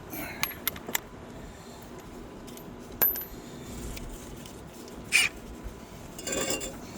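Metal tools and parts being handled, clinking: a few light clicks, a sharp ringing clink about three seconds in, and a short metallic rattle about five seconds in.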